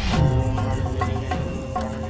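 Background music: a light comic tune with a regular clicking beat and bass notes that slide down in pitch.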